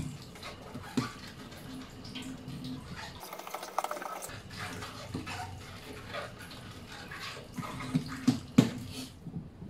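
Hands stretching and folding sticky wholemeal bread dough on a silicone baking mat during the first fold of the bulk rise: soft wet slaps and pats of dough, with a few sharper taps near the end.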